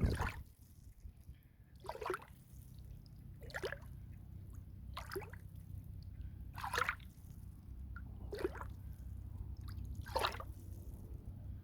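Water splashing in short, evenly spaced strokes about every second and a half, over a steady low rumble.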